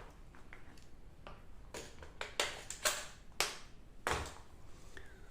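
A run of about five sharp clicks and knocks, irregularly spaced, as the parts of a gas blowback airsoft rifle are handled and fitted together.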